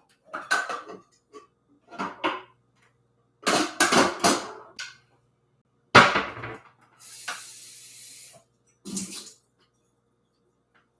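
Kitchen clatter: pans and utensils being picked up and set down, a series of knocks and clanks with one sharp clank about six seconds in, then a short hiss.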